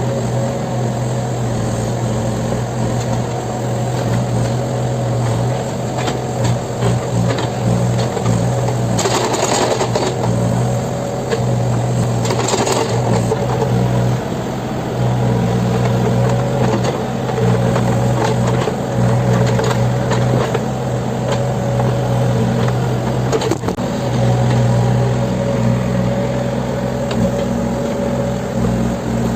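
Backhoe loader's diesel engine running steadily, with two brief bursts of noise about nine and twelve seconds in.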